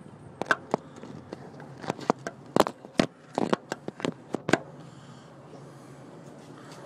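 Handling noise on a phone's microphone: a run of sharp clicks and scrapes as the phone is moved about, stopping about four and a half seconds in, leaving a steady faint background hiss.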